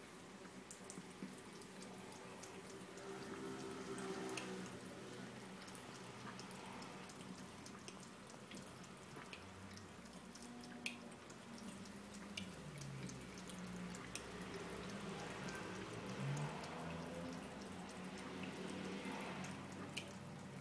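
Thin stream of tap water trickling into a sink, faint, with scattered irregular drips and small ticks as a cat laps from the stream.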